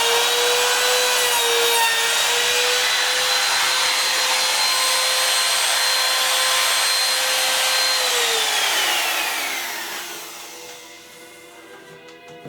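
Electric power tool working wood, its motor running at a steady pitch; about eight seconds in it is switched off and winds down, the hum falling in pitch as it fades out.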